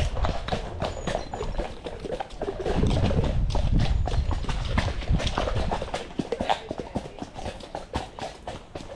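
Horses' hooves clip-clopping on a wet, muddy lane, several horses close together, over a low rumble that is strongest about three seconds in.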